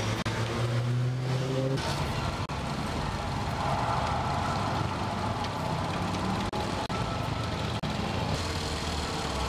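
City street traffic: road vehicle engines running, with a steady low hum for about the first two seconds, then general traffic noise.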